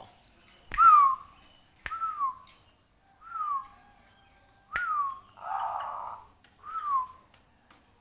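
A person gives five short, falling whistled notes, three of them starting right on a sharp snap or click. A brief hiss falls between the fourth and fifth notes.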